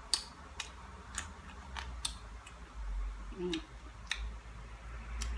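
A person chewing food, with about ten scattered sharp mouth clicks and smacks and a short hummed sound about three and a half seconds in, over a steady low hum.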